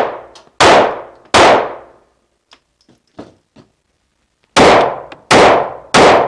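Sig Sauer P365 9mm pistol fired on an indoor range: two shots about 0.7 s apart, then after a pause of about three seconds with a few faint clicks, three more shots in quick succession. Each shot is sharp, with a long echoing decay.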